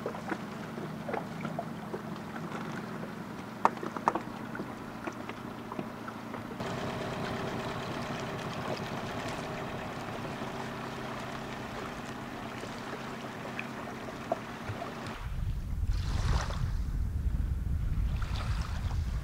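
A small boat's motor running steadily, its note shifting about six and a half seconds in, with a couple of sharp clicks around the four-second mark. About fifteen seconds in the motor sound gives way to wind rumbling on the microphone and the wash of waves.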